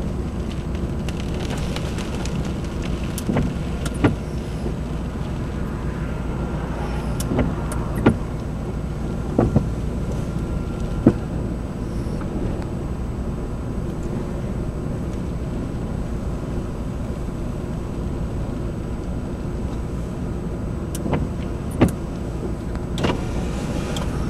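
Steady low rumble inside a car, with a few sharp clicks and knocks scattered through.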